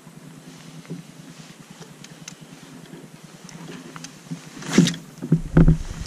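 A spinning rod cast from a kayak: a quiet low steady hum, then about five seconds in a short sharp swish as the rod is swung, followed by a couple of heavy low knocks.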